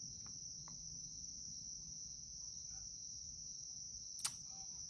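Steady high-pitched drone of crickets, with one sharp click about four seconds in.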